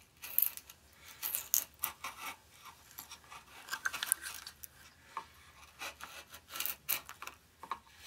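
A hand gouge cutting into a woodcut block, making irregular short scratching strokes as shavings lift from the wood.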